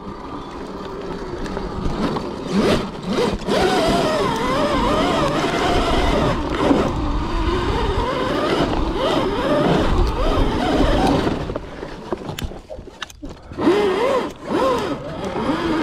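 Electric mini pit bike's motor whining, its pitch rising and falling over and over with the throttle, over rumbling tyre and ground noise on a rough dirt trail. There are a few sharp knocks from bumps, and the whine drops away briefly a couple of seconds before the end.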